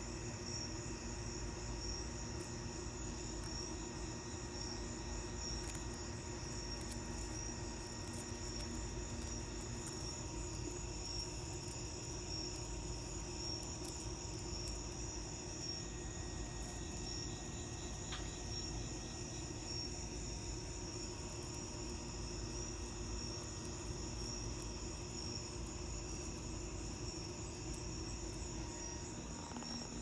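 Steady night-time insect chorus: a high, evenly pulsing trill that never lets up, with a low steady hum underneath.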